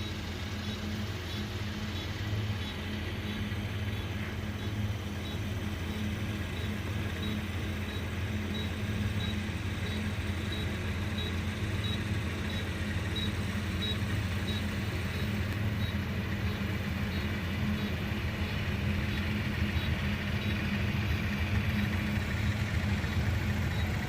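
Rice combine harvester's engine running steadily, a continuous low drone with a faint, regular high tick over it.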